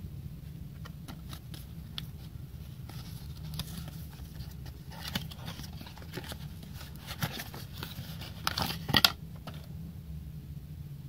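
Small cardboard bulb box handled and opened by hand: scattered taps, scrapes and rustles of cardboard, the loudest a quick cluster of scrapes about nine seconds in as the bulb slides out. A steady low hum lies underneath.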